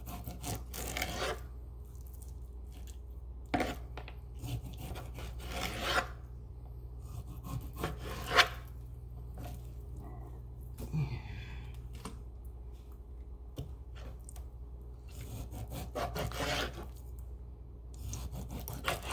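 Cutco kitchen knife slicing raw chicken breast on a plastic cutting board: irregular sawing and scraping strokes of the blade through the meat and against the board, with a few sharper knocks. A steady low hum runs underneath.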